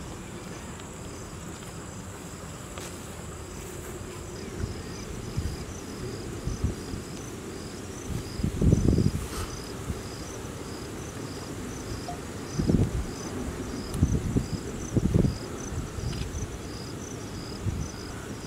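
Crickets chirping in a steady, regular pulsing rhythm with a thin high continuous trill above it. Low rumbles of wind on the microphone swell up several times, the strongest about halfway through.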